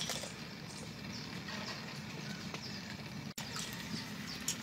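Outdoor ambience with a steady faint background hiss, scattered light clicks and knocks, and a few short high chirps; the sound drops out briefly a little past halfway.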